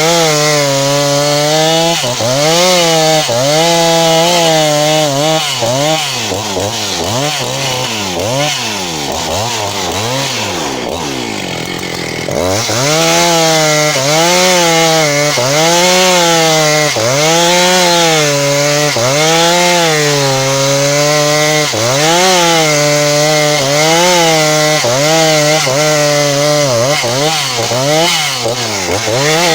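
A 272 chainsaw cutting lengthwise through a log to saw boards, its engine running hard under load. The pitch sags and recovers about once a second as the chain bites into the wood. It drops lower and wavers for several seconds through the middle, then picks up again.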